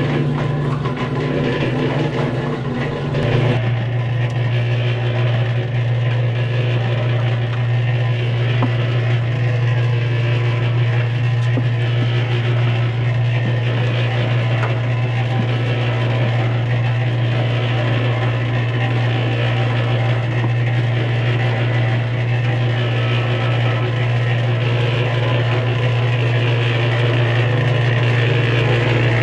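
Harbor Freight electric cement mixer running steadily, turning a 55-gallon barrel trommel as it sifts compost: a steady low hum with light scattered ticks, shifting slightly about three seconds in.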